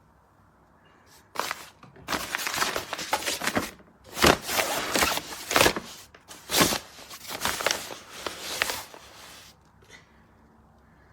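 Rustling and scraping handling noises in a series of uneven bursts, which stop about a second and a half before the end.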